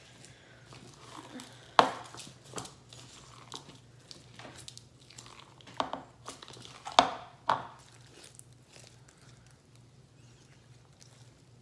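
Slime with sugar beads mixed in being kneaded and squished, giving crunchy clicks and crackles. The loudest sharp pops come about two seconds and seven seconds in, with softer crackling between, and it goes quieter over the last few seconds.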